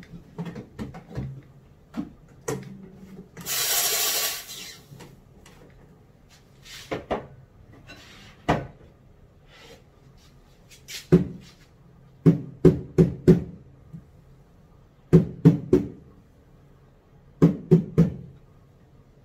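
Espresso machine steam wand purged in a short burst of steam lasting about a second. Then a stainless steel milk pitcher is knocked on the counter in groups of three or four quick taps, the usual way of popping bubbles in steamed milk before pouring latte art.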